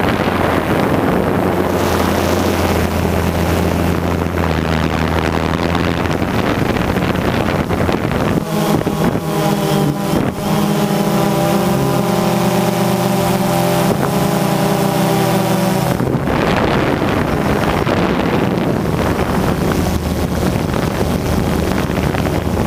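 Remote-controlled aircraft's motors and propellers running steadily, heard from its onboard camera, with wind rushing over the microphone. The motor tone jumps to a higher, busier pitch about eight seconds in and drops back about halfway through as the throttle changes.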